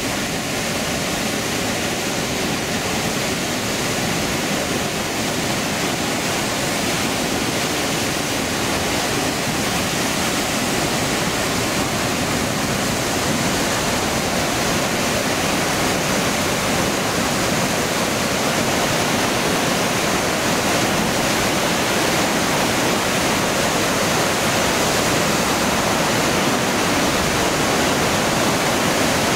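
Floodwater pouring out of a dam's outlet at maximum release, about 23,000 cubic feet per second, churning into whitewater below the outlet wall: a steady, loud rushing.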